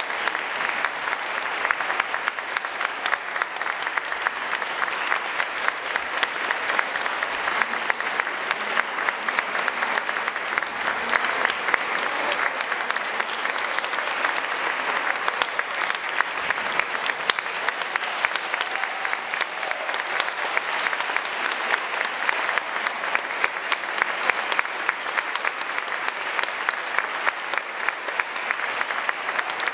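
Audience applauding, a steady, dense clapping that does not let up.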